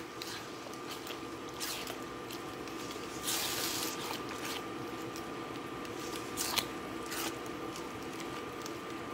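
Silicone spatula stirring a thick gumbo base of roux, vegetables and chicken broth in a pot: irregular wet squelching and scraping strokes, the loudest about three seconds in. The base is still really thick, the broth not yet fully worked in.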